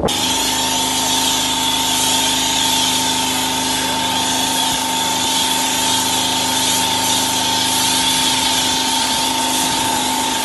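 Pressure washer running steadily, its motor and pump giving a constant hum under the hiss of the lance spraying snow foam onto a van.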